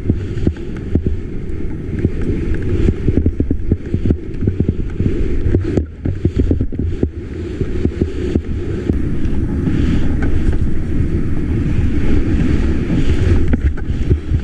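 Wind buffeting an action camera's microphone during a fast downhill ski run, a steady low rumble with scattered knocks. Skis hiss over the snow, louder in the later seconds.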